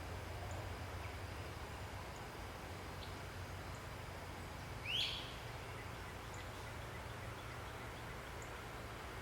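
Outdoor ambience with a steady low rumble and faint scattered chirps, and one louder, quickly rising bird call about five seconds in.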